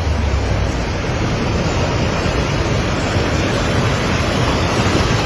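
Steady, loud rush of water, in keeping with floodwater and heavy rain, with a low rumble under it in the first second.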